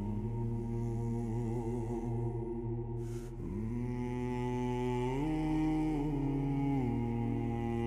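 Music: a wordless chanting choir holding long notes over a steady low drone, moving to a new pitch every couple of seconds.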